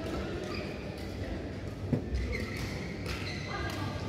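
Badminton rally: rackets striking the shuttlecock, the sharpest hit about two seconds in, over players' footwork and background voices in a large sports hall.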